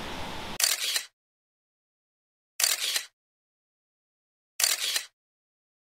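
Steady rush of a waterfall that cuts off abruptly about half a second in, followed by dead silence broken by three short bursts of hissing noise, about two seconds apart.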